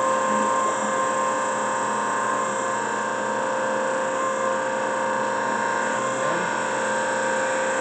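TOS BPH20 8x24 three-axis surface grinder running under power, its wheel spindle and hydraulic system switched on: a steady machine hum with a constant whine.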